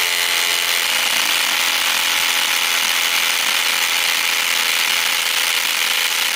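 Milwaukee M18 brushless compact impact driver hammering continuously under load, its impact mechanism rated at about 4,900 impacts per minute making a steady, dense rattle.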